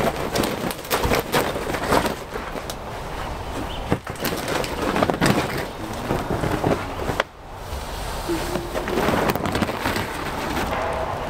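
Corrugated plastic (coroplast) shelter panels being handled as the shelter is taken down: irregular rattling, flexing and knocking, with a brief lull about seven seconds in.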